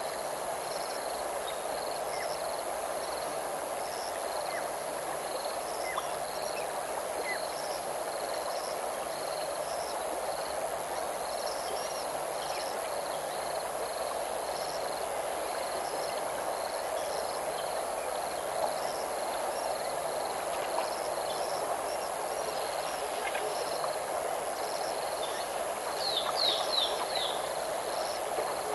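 Outdoor bush ambience: a steady rushing noise under a faint high chirp repeating about once a second, with a short flurry of high bird calls near the end.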